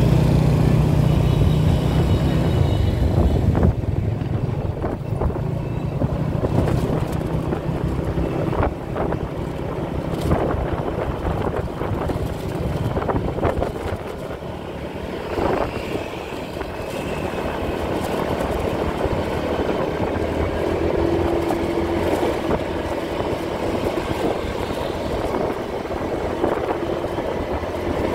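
Motorbike riding along a street: its engine hum is strong for the first few seconds, then gives way to a steady rumble of wind and road noise on the microphone, with a few short knocks.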